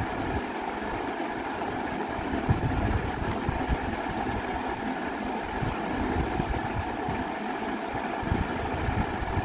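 Steady machine-like hum with an uneven low rumble beneath it.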